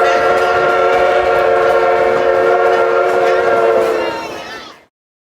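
Steam locomotive whistle blowing one long blast, a steady chord of several tones, over faint rail clatter; it tails off about four seconds in and the sound cuts out.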